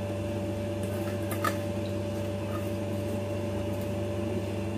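Steady low electrical hum, with a couple of faint light taps about one and a half seconds in as mint leaves are dropped by hand into a stainless steel mixer-grinder jar.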